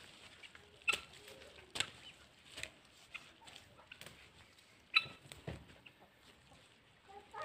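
A hoe chopping into damp garden soil about once a second, each stroke a short scraping thud, as a shallow trench is dug.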